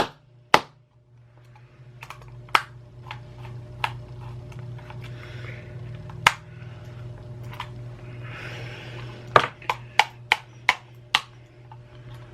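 Small hand tool clicking and tapping against the plastic parts of a computer mouse as it is pried apart, with a quick run of about six clicks near the end, over a steady low hum.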